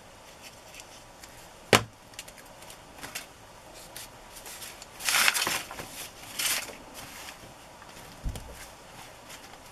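Paper scraps being handled and pressed onto a journal page: one sharp knock about two seconds in, scratchy paper rustling and rubbing around the middle, and a dull thump near the end.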